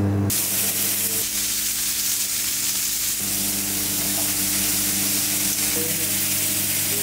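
Bacon-wrapped chicken skewers and meat rolls sizzling on a grill grate. The steady hiss begins a moment in, over a low steady hum.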